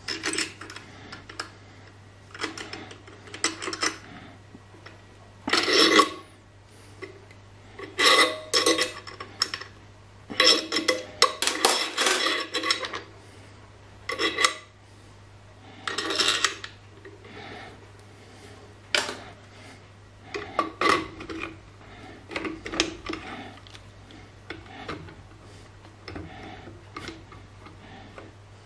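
Metal parts and a small wrench being handled: irregular bursts of scraping and clinking as threaded studs and aluminium standoffs are screwed into a milling-machine power-feed mounting bracket. A steady low hum runs underneath.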